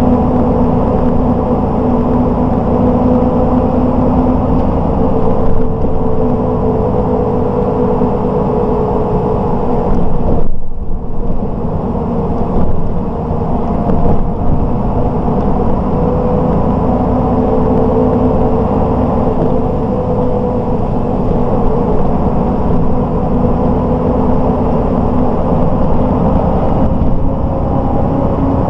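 1992 MAN SL 202 city bus driving, heard from inside the passenger cabin: the diesel engine and drivetrain running steadily with a few even tones over tyre and road noise. The sound briefly drops away about ten seconds in, then carries on.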